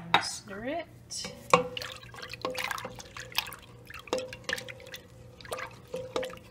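A spatula stirring milk in a stainless steel Instant Pot inner pot: liquid sloshing and dripping, with irregular light knocks of the spatula against the pot, each leaving a brief metallic ring.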